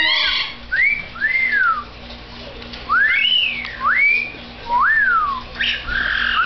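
African grey parrot whistling a run of swooping notes, each rising then falling in pitch, with a short pause about two seconds in and a harsher, noisier note near the end.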